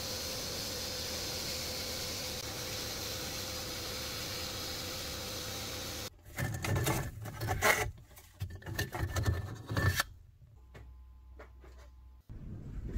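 Sandblaster nozzle blasting abrasive onto rusty metal lantern parts: a steady hiss that stops suddenly about six seconds in. Then the blasted metal parts are handled, with irregular knocks and scrapes for a few seconds, followed by a faint hum.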